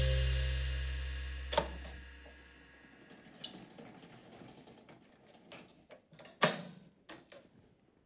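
Background music ends on a held chord that fades out over the first three seconds. Then come faint clicks and knocks from a handwheel being turned on a storage cabinet, with one louder thump a little past the middle.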